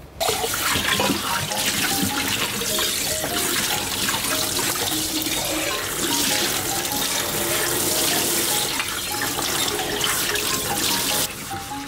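Water tap running steadily into a sink, turned on just after the start and off about a second before the end, with light background music over it.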